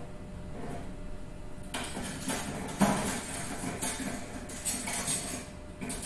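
Kitchen utensils and cutlery clattering and clinking in a utensil holder as someone rummages through it for a pair of scissors. The irregular rattling and knocks start about two seconds in.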